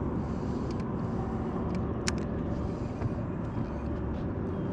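Steady low rumble with a faint motor hum from a fishing boat holding position over the fish, and one sharp click about two seconds in.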